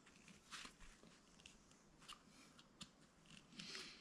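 Near silence with a few faint, short rustles and ticks from hands handling a sandal and its lace.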